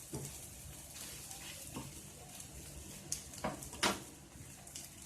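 Spatula working in a frying pan: a few short scrapes and clinks of utensil on pan, the loudest two between three and four seconds in.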